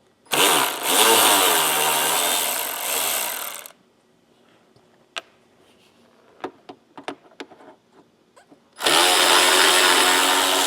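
Power drill-driver with a Torx bit spinning out the screws from the top of a UTV headlight, in two runs of about three seconds each with the motor pitch wavering. Small clicks of the tool and screws fall between the runs.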